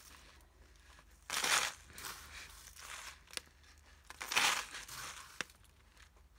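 Clear plastic bag of sequins crinkling in two short bursts as it is handled and tipped, with a few light clicks as sequins drop into a plastic page-protector pouch.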